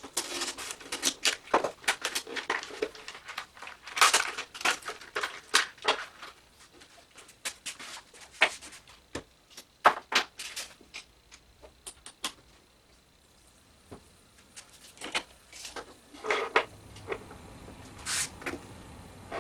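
Irregular clicks, taps and knocks of small hardware and hand tools being handled and set against a wooden tool box as its handle is fitted. The sounds come thickly at first, then sparser, with a few louder knocks later on.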